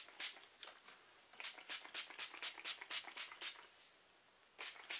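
Pump spray bottle of leave-in hair treatment spritzed repeatedly onto wet hair in quick runs of short sprays, about four or five a second, with a pause of about a second before a last few.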